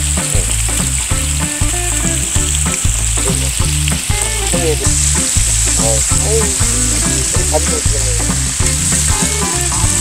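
Pork belly slices, king oyster mushrooms and green onion sizzling and spitting on a hot griddle pan, with the pieces being turned and stirred with tongs. A low stepped bass line of background music runs underneath.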